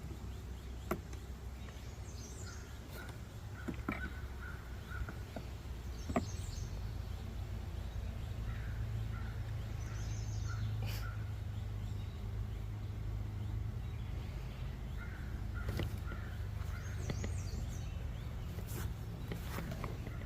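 Steady low hum of honeybees around an opened hive. A crow caws a few times in the background, and there are a few light clicks.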